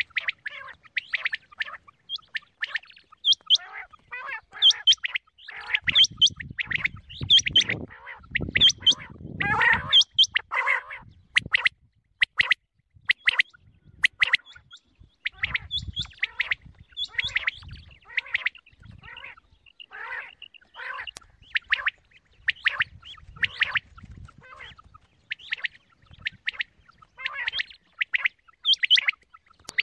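Quail (batair) calling over and over in short, sharp chirps, a few a second in loose clusters, with patches of low rumbling noise around them. This is a quail lure call, played to draw quail into hunters' nets.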